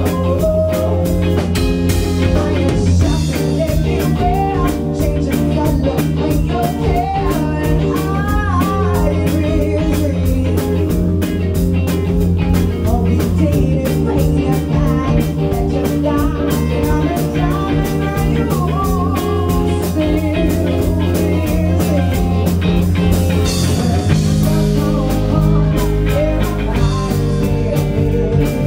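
Live band playing with two electric guitars and a drum kit, and a woman singing.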